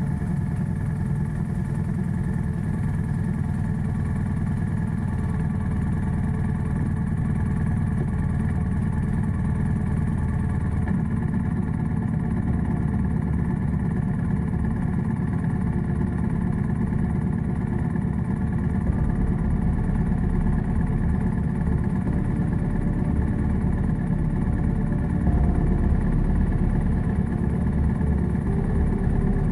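Motorcycle engine idling steadily at a constant pitch, with a low rumble underneath.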